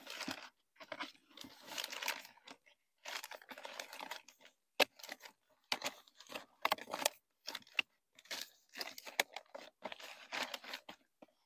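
Plastic sheeting crinkling and rustling in irregular bursts as small plastic flower pots are pushed into place on it inside a large plastic planter, with a few sharp clicks and knocks of plastic on plastic.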